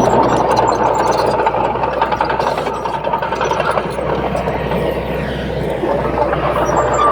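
Heavy diesel engine of earthmoving machinery, a bulldozer or dump truck, running steadily under work.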